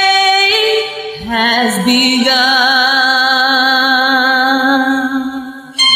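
A woman singing long held notes: a high note breaks off under a second in, then her voice slides up into a lower note, which she holds with vibrato for about three seconds before it fades away.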